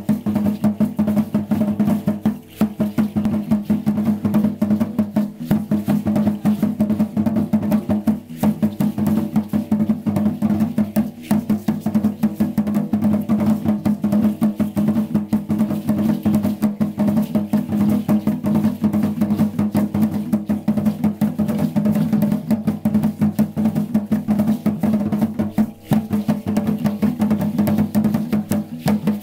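Drum-led dance music: fast, continuous drumming and rattling percussion over a steady low held tone.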